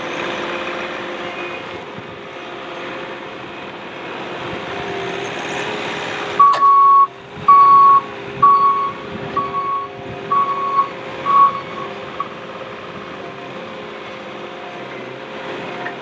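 Bobcat T595 compact track loader's diesel engine running as the machine drives on gravel. Midway through, its reversing alarm beeps six times, about once a second, as it backs up.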